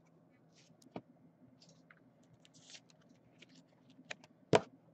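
Quiet handling noise from a trading card in a hard plastic holder: scattered faint clicks and rustles, a sharp click about a second in, and a louder click and knock near the end.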